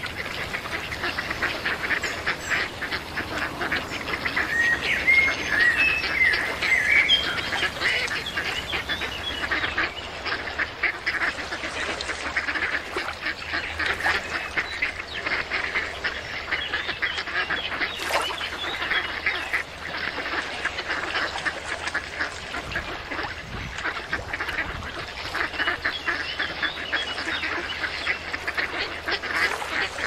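A flock of white domestic ducks quacking continuously, many calls overlapping.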